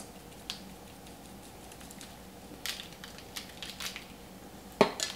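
Plastic shaker of grated Parmesan cheese being shaken and tapped over corn cobs: scattered soft taps and rustles, with a few sharper clicks near the end.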